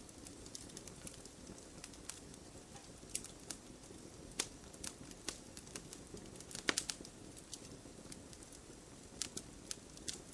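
Wood fire burning with a low steady hiss and scattered sharp crackles and pops, the loudest quick cluster of pops a little past the middle.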